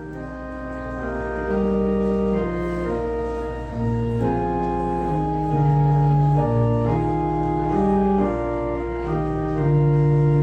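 Church organ playing a prelude: sustained chords that swell in over the first couple of seconds, over a steady low bass note.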